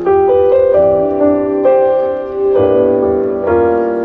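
Slow piano introduction to a ballad: sustained chords that change every second or so, before any singing.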